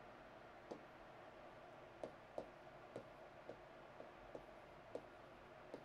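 Chalk tapping on a chalkboard while a word is written by hand: about nine sharp, irregular clicks as the chalk strikes the board, over a faint room hum.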